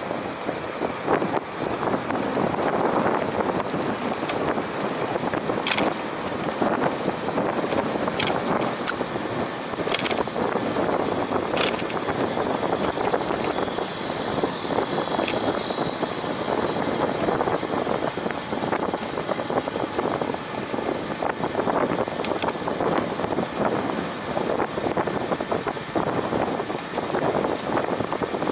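Steady rushing noise of riding a bicycle: wind on the microphone and tyres rolling on the path, with scattered light clicks and a brief higher hiss around the middle.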